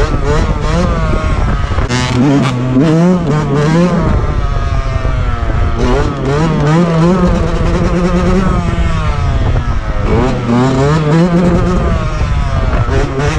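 Motorcycle engine revving, its pitch repeatedly climbing and dropping as the throttle is worked, with two longer climbs about two seconds in and again near ten seconds.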